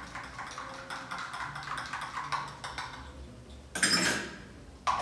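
Small, irregular clicks and clinks of a plastic baby bottle being handled as its cap is screwed on, then a short, louder burst of noise about four seconds in.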